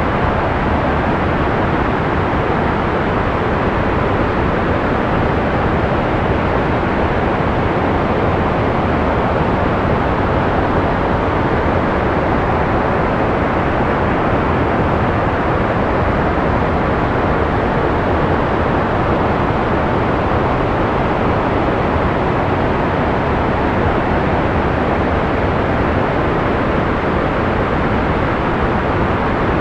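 Analog white noise: a steady, unchanging hiss without pitch or rhythm. It is full in the low and middle range and thins out in the treble, so it sounds soft rather than bright.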